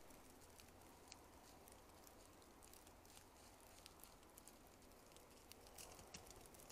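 Near silence, with faint, scattered light ticks and patter throughout.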